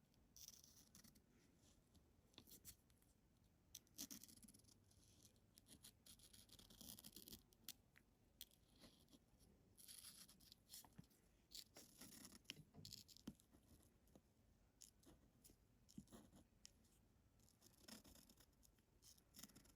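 Faint, intermittent scratching of a marker tracing lettering on paper, in short strokes with pauses between.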